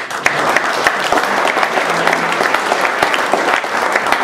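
Audience applauding: many hands clapping together, setting in at once and going on at a steady level.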